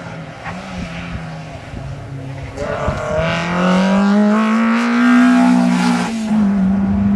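Peugeot 205 rally car's engine pulling hard as the car approaches and passes, its pitch rising from about three seconds in. There is a brief dip near the end as the driver lifts off, then it holds steady at high revs.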